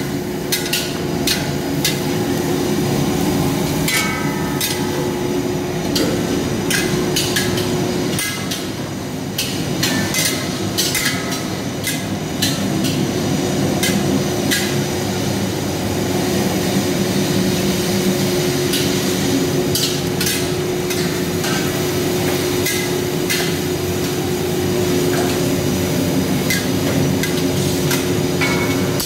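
Long steel ladles clanking and scraping against steel kadhais as onions are stirred and fried, in quick irregular knocks, some ringing briefly. Underneath runs a steady kitchen hum.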